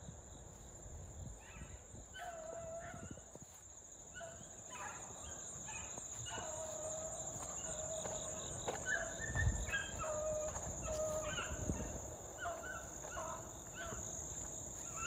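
Beagles giving tongue while running a rabbit: a faint string of short, repeated barks from the pack, coming more often after the first few seconds. Insects trill steadily behind them.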